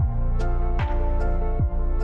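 Background music: a soft electronic instrumental with held chords and a deep beat that drops in pitch about every 0.8 s.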